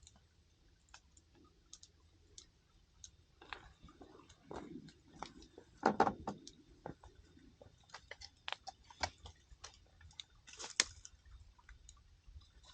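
Burning firewood crackling with irregular sharp pops and ticks, plus a louder crackle or knock about six seconds in.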